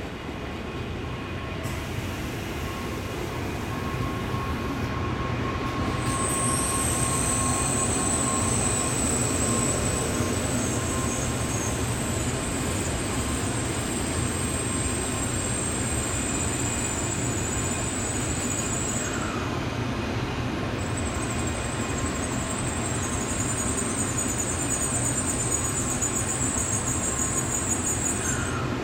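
N700A Shinkansen train rolling slowly along the platform as it pulls in, a steady rumble with a high-pitched squeal that starts about six seconds in, breaks off briefly midway, and comes back.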